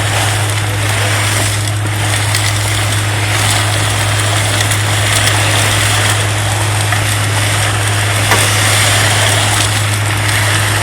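Vacuum truck's suction system running steadily: a constant low drone under an even, loud rush of air.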